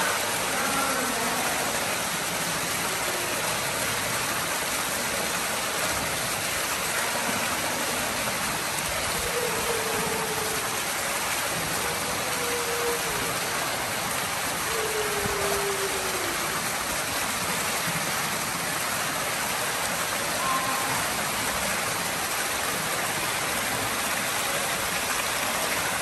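Steady rushing hiss of water in a steaming thermal pool.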